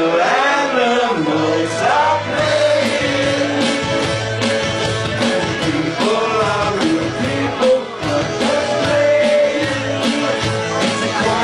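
A live band playing a rock song, with a man singing the lead over a bass line and a steady, evenly struck beat.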